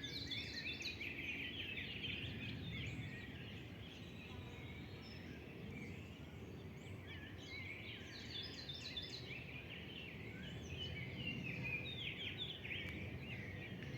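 Several birds singing at once, a dense chorus of rapid chirps, trills and short falling note series, over a steady low background rumble.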